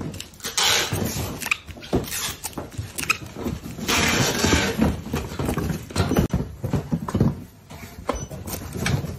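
Bubble wrap and plastic wrapping crinkling and rustling as tins are handled and packed, with irregular light knocks and clicks of the tins. The crackling comes in two louder stretches, about half a second in and again around four seconds in.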